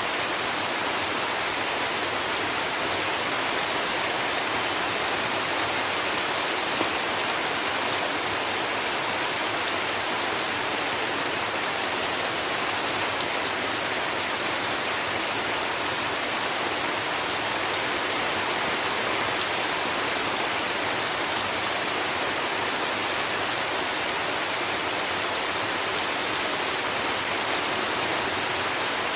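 Heavy rain falling steadily, a dense even hiss of drops with a few sharper drop ticks here and there; no thunder.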